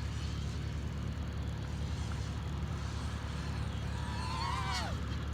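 FPV quadcopter's motors whining in flight over a steady low rumble; about four seconds in the whine rises in pitch, then drops away sharply near the end.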